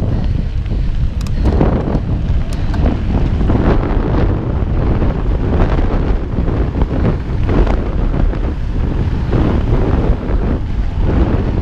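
Wind buffeting a GoPro's microphone as a mountain bike rides fast over a dirt trail, a steady low rumble with irregular surges of tyre and frame rattle over the ground.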